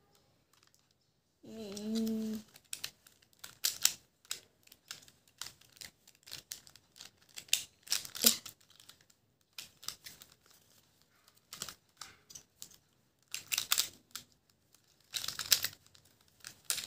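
Rubik's cube being twisted by hand: irregular runs of quick plastic clicks and clacks as the layers turn. A short hummed voice sound comes about two seconds in.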